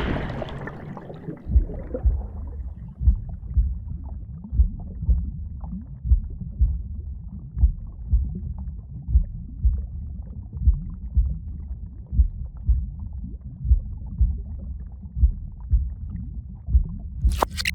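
A splash into water right at the start, then a muffled underwater rumble with a slow heartbeat, a low double thump about every second and a half: the sound of someone sinking underwater and nearly drowning.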